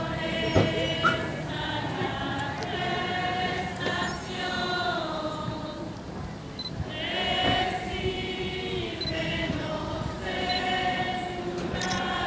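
A procession crowd singing a religious song together, unaccompanied, in long held phrases with a short pause about halfway through. A couple of sharp knocks sound in the first second.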